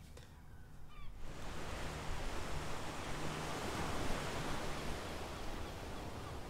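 Ocean surf breaking on a beach, a steady rushing wash of noise that comes up about a second in.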